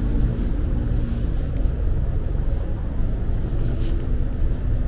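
City street ambience dominated by a steady low rumble, with a short hiss about four seconds in.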